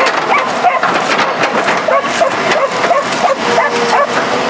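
Dog barking and yelping in quick, repeated short calls over the loud, continuous clattering noise of a working excavator.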